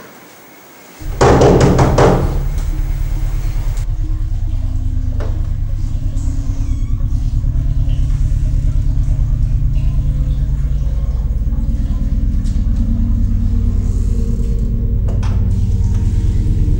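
Suspense film score: a sudden loud hit about a second in, then a low rumbling drone of several steady held tones, with higher tones joining in the second half.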